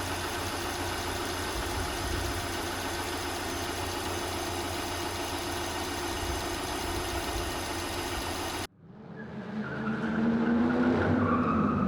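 Subaru EJ 2.5-litre SOHC flat-four running steadily at idle. About nine seconds in it cuts off abruptly, and a car engine starts revving up, rising in pitch and getting louder.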